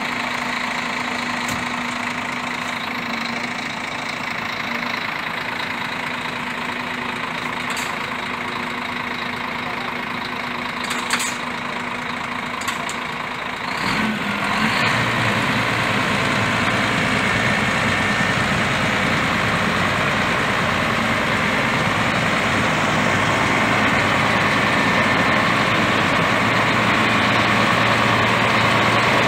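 Scania truck's diesel engine idling steadily. About halfway through it becomes louder and deeper and keeps growing slowly, with a few light clicks before that.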